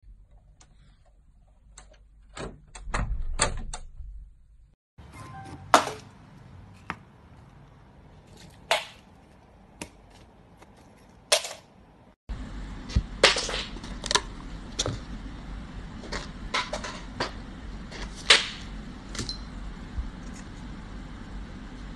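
Irregular sharp knocks and taps, one every second or two, coming more often in the last part over a louder steady background.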